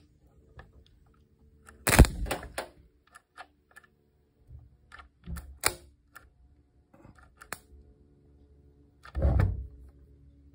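Harbor Freight stud-welder dent puller spot-welding copper studs onto a car body panel's bare steel: two loud zaps, about two seconds and about nine seconds in. Between them is a sharper snap, with light clicks from the tool being handled.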